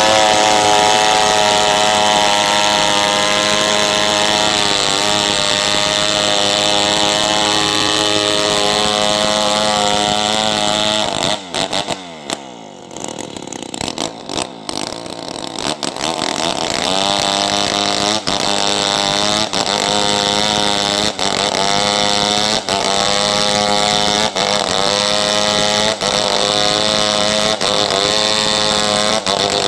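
Two-stroke chainsaw engine running at high revs. About eleven seconds in its pitch falls away and it drops quieter for a few seconds, then it picks up again and runs on high, the pitch dipping and recovering every second or two.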